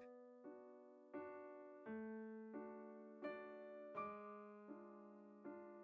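Faint background music: soft electric-piano chords, a new chord struck about every three-quarters of a second and each left to fade.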